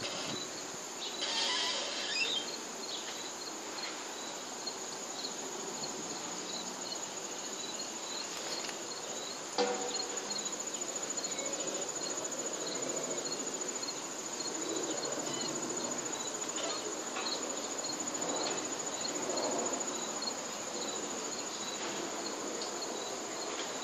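Outdoor insect chorus: a continuous high-pitched trill with a cricket chirping over it at a steady rhythm of about two chirps a second. There is a single sharp knock about ten seconds in.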